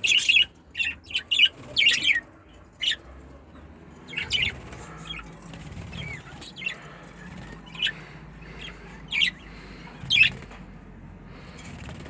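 Budgerigars chirping: short sharp chirps, a quick run of them in the first two seconds, then single chirps about a second apart.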